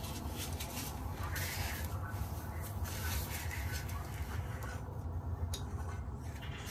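Light scraping and rustling of hand work at an old toilet's rusted water-supply fitting, over a steady low hum.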